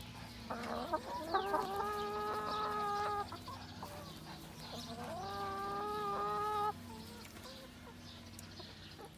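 Domestic hens calling: two long, drawn-out calls of about two seconds each, with softer clucking around them.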